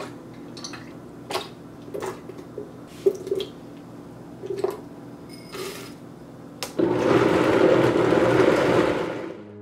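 Frozen banana, blueberries and oats dropped into a Vitamix TurboBlend VS blender jar of almond milk, a few scattered knocks and plops. About seven seconds in, the blender motor starts and runs loudly, blending the smoothie, then winds down just before the end.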